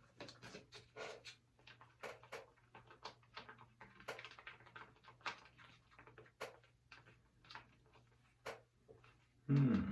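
Faint, irregular clicks and taps of a stirring stick in a container as food colouring is mixed into slime glue, over a low steady hum. A brief louder sound comes near the end.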